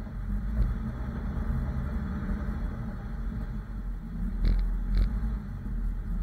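Off-road vehicle's engine running at low speed while crawling along a muddy trail, a steady low rumble, with two short knocks a little past the middle as the vehicle jolts over the rough ground.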